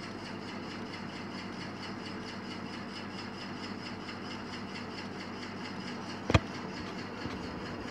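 Steady low background hum, with one sharp click about six seconds in.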